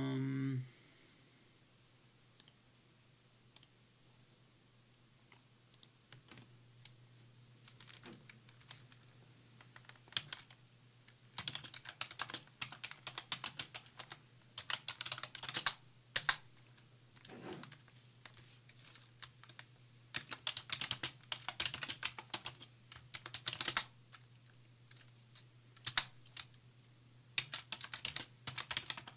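Typing on a computer keyboard in irregular bursts, sparse at first and busier from about eleven seconds in. A short pitched tone sounds at the very start.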